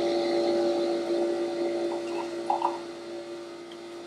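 Nespresso capsule coffee machine brewing, a steady hum as coffee runs into a mug. The hum drops noticeably about two and a half seconds in, with a few light clicks just before.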